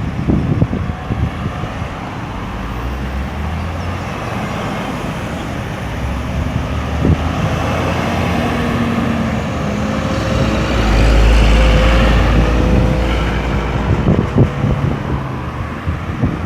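Road traffic passing through a busy roundabout: cars and other motor vehicles running by in a steady wash of engine and tyre noise. About two-thirds through, a deep rumble swells as one vehicle passes close.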